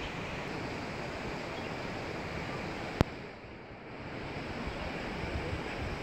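Steady rushing outdoor noise of a river's flowing water with wind buffeting the microphone. A single sharp click about three seconds in, after which the noise drops quieter for about a second and then builds back.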